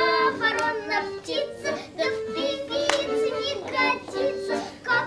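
Children singing chastushki, short Russian folk ditties, in short sung lines over musical accompaniment.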